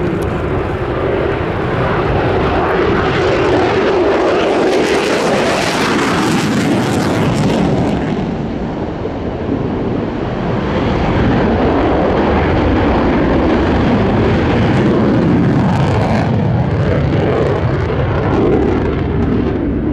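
F-16 fighter's General Electric F110 jet engine in afterburner during a steep climb: a loud, continuous rushing jet noise with slowly sweeping shifts in tone. It is harshest and crackling from about three to eight seconds in, then duller.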